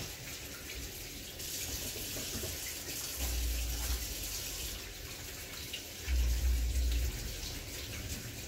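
Kitchen sink faucet running while hands are washed under it, a steady splashing hiss. Two low rumbles stand out, about three and six seconds in.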